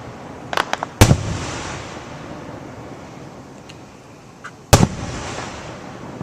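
Aerial fireworks going off: a few quick crackling pops, then two loud booms about four seconds apart, each trailing off in a long echoing rumble.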